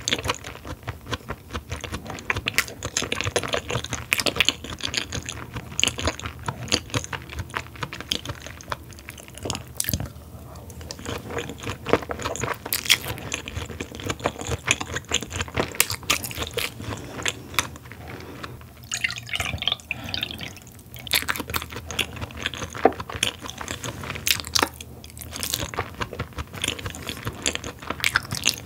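Close-miked wet chewing and mouth smacking of someone eating raw beef tartare (yukhoe) and raw beef cubes, with many quick irregular smacks and clicks and a few short pauses.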